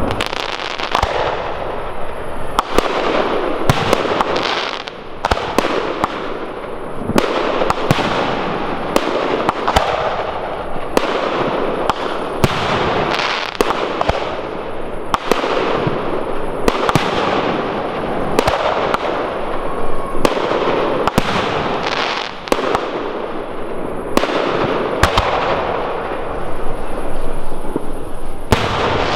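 Professional aerial fireworks display: shells bursting in rapid, irregular succession, dozens of sharp bangs over a continuous crackling.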